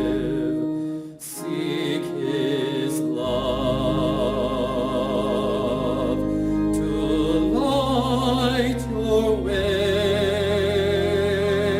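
Sung music: a vibrato voice holding long notes over sustained low accompaniment, with a brief break about a second in and a rising vocal glide near the end.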